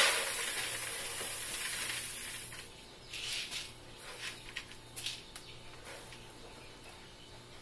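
Oats poured from a scoop into a bucket, a dry hiss of running grain that fades over the first two and a half seconds. This is followed by scattered light rustles and ticks as the grain is handled.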